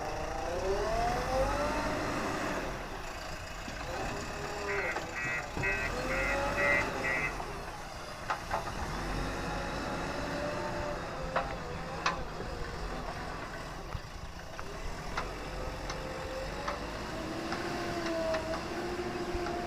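Heavy-equipment diesel engine revving up and down under work, with a reversing alarm beeping in a short run partway through and a few sharp knocks.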